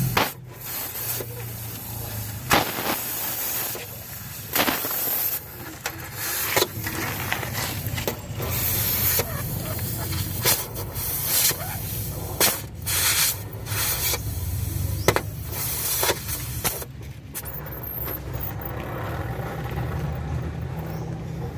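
Repeated short bursts of hissing, about a dozen, each under a second, over a steady low hum.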